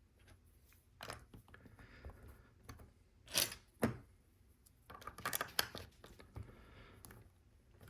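LEGO plastic bricks being handled and pressed together: scattered clicks, taps and brief scrapes, the loudest a pair of sharp clicks a little past the middle.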